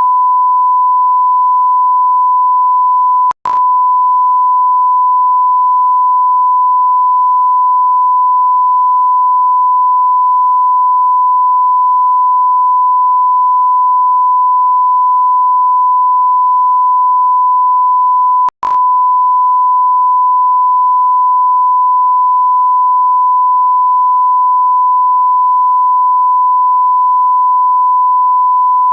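A continuous electronic beep: one steady pure tone at a single pitch that never changes. It drops out for an instant with a click twice, a few seconds in and again about eighteen seconds in.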